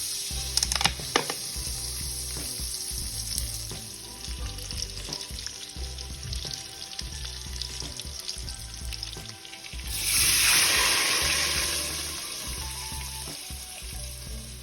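Food sizzling as it fries in hot oil, the sizzle swelling louder about ten seconds in and then easing off. A steady low beat runs underneath.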